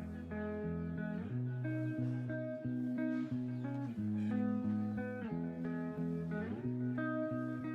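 Background music played on guitar: plucked notes changing about every half second, with one sliding note about six and a half seconds in.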